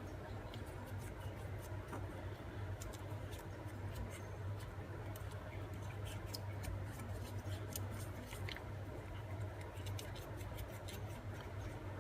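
Ball stylus tool rubbing and pressing into dampened paper flower petals on a cushioned pad, giving faint, irregular scratchy clicks over a steady low hum.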